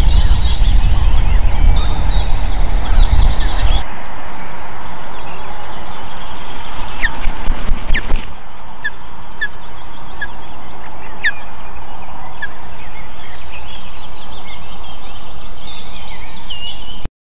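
Ospreys calling at the nest: strings of short, high, whistled chirps repeated about twice a second, with wind rumbling on the microphone for the first few seconds.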